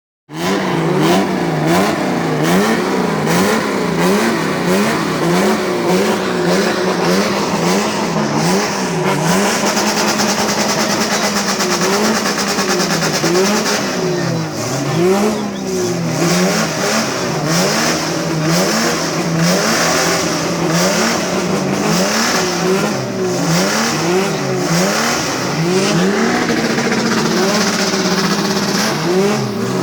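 Ford Falcon engine being revved over and over in blips, the pitch rising and falling about once a second and settling back toward idle between revs.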